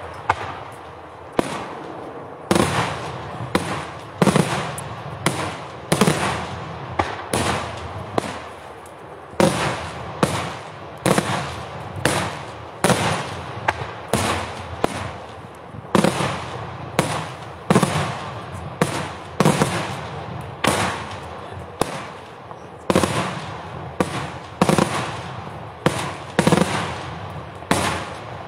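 Daytime fireworks: aerial shells bursting in a steady run of loud bangs, about one a second, each trailing off in an echo.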